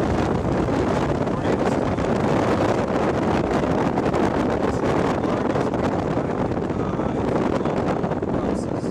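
Strong storm wind buffeting the microphone: a loud, steady rush of noise with constant gusty flutter.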